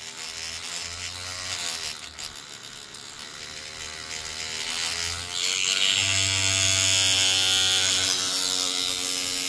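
Green Stuff World handheld cordless paint shaker running with a paint bottle clamped in it: a small electric motor buzzing and vibrating, its pitch wavering. About five to six seconds in it grows louder and harsher, with a hissing rattle over the hum.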